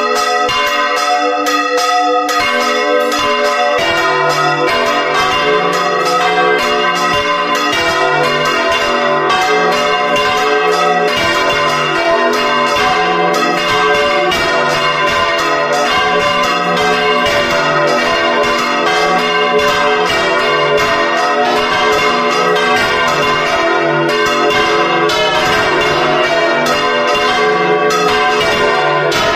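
Church bells swung full circle in the Valencian volteig style, from a 184 kg treble to a 1487 kg tenor. Their strokes overlap in a dense, continuous peal, and a deeper bell joins about four seconds in.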